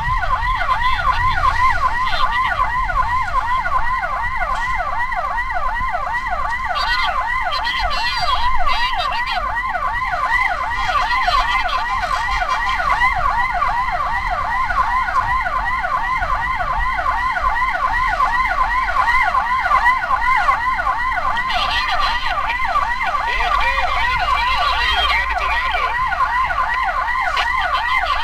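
Ambulance siren sounding a fast yelp without a break, its pitch sweeping up and down several times a second over a low rumble of vehicle and road noise.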